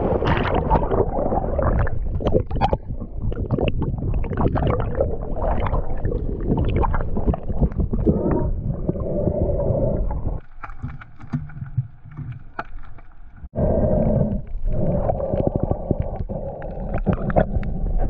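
Muffled underwater sound through an action camera's housing: low rushing and gurgling of water with many scattered clicks and knocks. It drops away suddenly about ten seconds in and comes back sharply a few seconds later.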